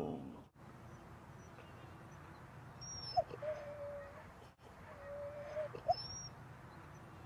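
Siberian husky whining: two short whines about two seconds apart, each a held note with a brief upward yelp at one end.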